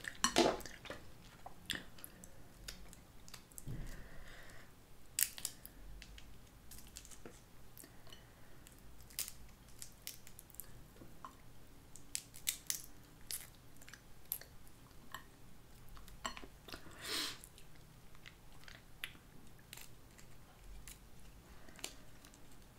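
Eating Dungeness crab: soft chewing, with scattered small crackles and clicks of crab shell being broken and meat picked from it by hand. A few louder cracks stand out.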